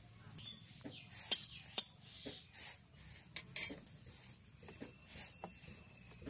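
Steel spoon clinking and tapping against steel bowls, plates and an iron kadai as whole spices are put into the dry pan. It is a loose series of sharp metallic clinks, the two loudest about a second and a half in.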